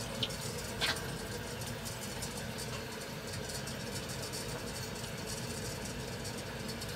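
Steady hum and rush of water running through the fill line into a steam boiler as it is refilled, with two faint clicks in the first second.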